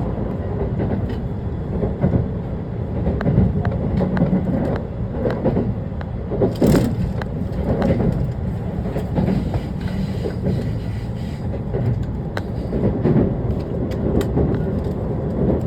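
Electric commuter train running along the line: a steady rumble with frequent short clicks and rattles of the wheels over rail joints, and a sharper rattle about seven seconds in.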